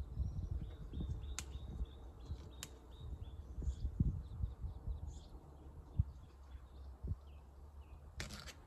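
Small birds chirping repeatedly over a steady low outdoor rumble, with sharp clicks twice in the first three seconds and a short rustling burst near the end as garlic scapes are picked off by hand.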